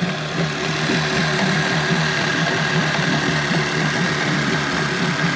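Mercury 25 hp outboard motor with the cowling off, idling steadily in a test barrel of water.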